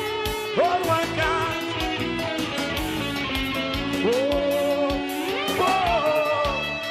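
Live brega band music: an electric guitar lead slides up into long held notes over a steady beat.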